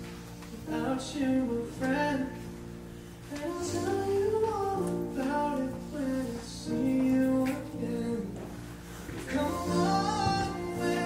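A song played as background music: a woman singing over guitar.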